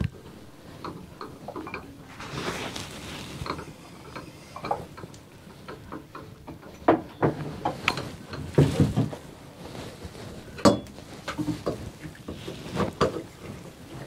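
Screwdriver tightening the screws of a shower valve's trim plate: scattered small clicks and scrapes of the tool on the screws and plate, with a few sharper knocks about halfway through and near the end.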